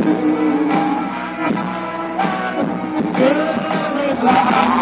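Singing into handheld microphones over amplified accompanying music.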